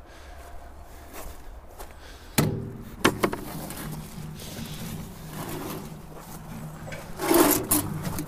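A bucket clanking into a metal wheelbarrow about two and a half seconds in, then the wheelbarrow rattling as it is wheeled over frozen, snowy ground, with a louder scraping clatter near the end.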